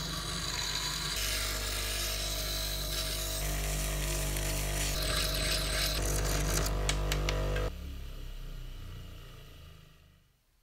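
Power drill spinning a small steel pin while a needle file and then abrasive paper are held against it: a steady motor hum with a high scraping hiss, in several cut sections, fading out near the end.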